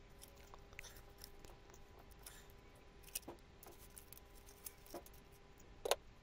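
Faint, scattered small clicks and taps as the rusty nuts are taken off the exhaust manifold studs by hand, with a couple of sharper clicks near the end.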